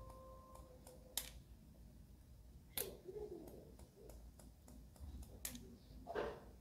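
Hair-cutting scissors snipping through short hair in a few sharp separate cuts, with fainter snips and clicks between them, as the ends are texturized.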